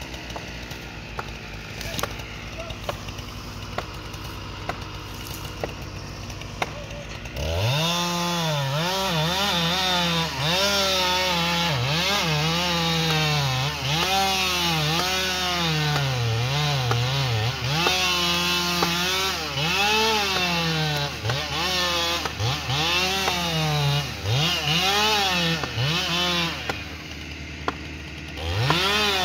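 Ported Husqvarna 395XP chainsaw idling low, then from about seven seconds in running at full throttle in a felling cut through a big tree trunk, its pitch dropping and climbing again and again as it works through the wood. It eases off briefly near the end before opening up again.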